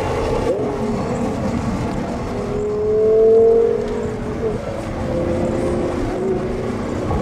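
Supercar engine running steadily, with a brief louder swell in its note about three seconds in.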